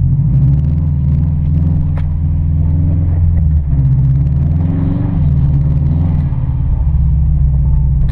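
Car engine running under a steady low rumble, the revs rising and easing off a few times.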